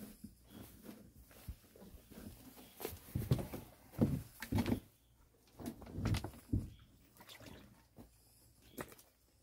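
Footsteps crunching and scuffing over loose rocks, a person walking down a stony lakeshore slope. The steps come in an irregular run, loudest a few seconds in as the walker passes close by.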